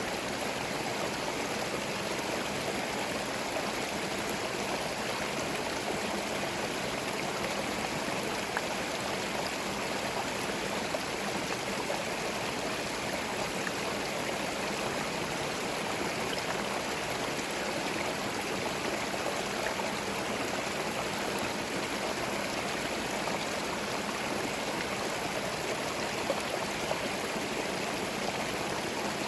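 Forest stream running over stones, a steady even rush of water with small splashes and gurgles.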